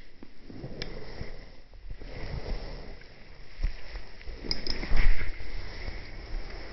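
A Norwegian Forest Cat and Persian mix cat licking itself while grooming: soft, uneven licking and rubbing sounds with a few small clicks, loudest about five seconds in.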